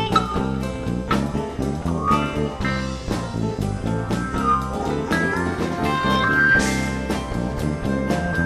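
Live band playing an instrumental passage: electric bass and a drum kit keep a steady beat while a guitar plays a lead line that slides between notes.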